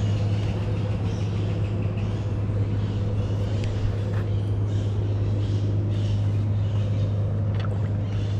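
A small boat motor running at a steady speed: an unbroken low hum, with a few faint clicks over it.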